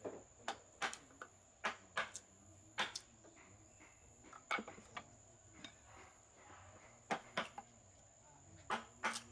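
Wooden mallet striking a flat chisel into a block of wood during hand carving: sharp wooden knocks at an uneven pace, about a dozen, in clusters with short pauses between them.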